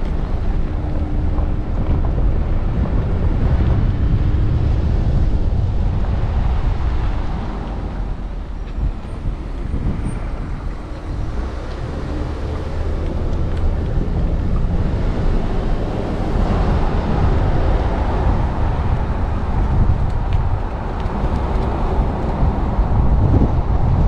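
Car driving on a road: steady engine and tyre noise, easing off for a few seconds in the middle and picking up again about two-thirds of the way through.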